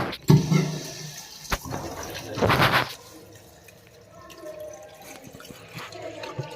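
A short rush of water in a concealed toilet cistern lasting about half a second, a little over two seconds in, among scattered clicks and knocks of the plastic flush parts being handled.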